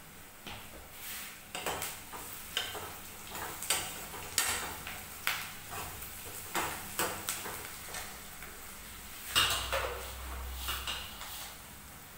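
Irregular clinks and knocks of steel kitchenware: a metal spoon stirring chopped onions in a steel frying pan on the gas stove, and dough being worked in a steel tray. The loudest knock, with a dull thud under it, comes about nine seconds in.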